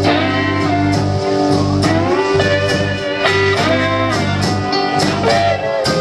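Live blues band playing an instrumental passage: guitar lead with bending, sliding notes over steady bass, keyboards and drums.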